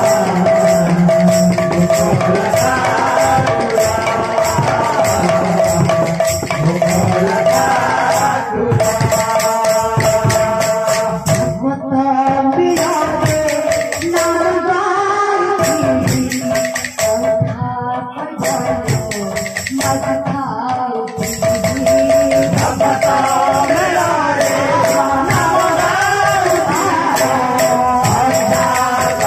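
Live Odia kirtan music: singing amplified through microphones over two-headed barrel drums and jingling metallic hand percussion, with a steady drone note underneath. The jingling thins out for a few seconds past the middle, then returns.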